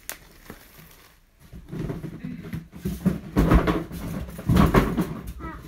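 Cardboard box and plastic wrapping being handled during unpacking: after a quiet start, irregular rustling and crinkling with dull thumps as parts are moved and set down.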